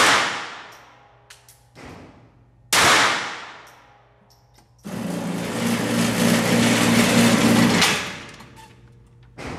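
Two .22 pistol shots about three seconds apart, each ringing off the walls of an indoor range, then a steady whirring motor for about three seconds that dies away.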